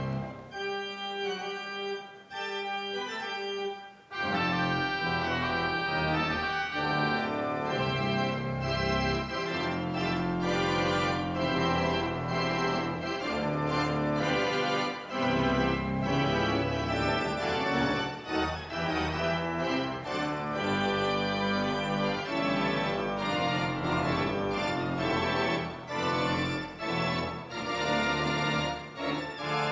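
Organ music in full, sustained chords that grow louder and fuller about four seconds in.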